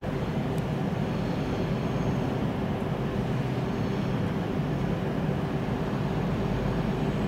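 EMR Class 222 Meridian diesel multiple unit running on the move, a steady low engine rumble with a faint hum of steady tones over it.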